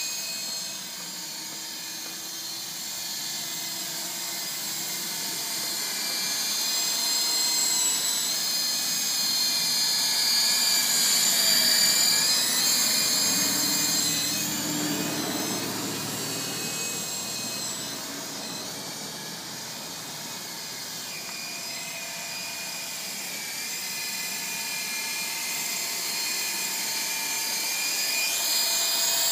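Syma S33 large-scale coaxial RC helicopter in flight: its electric motors and rotors make a steady high whine that wavers in pitch, swelling and fading in loudness.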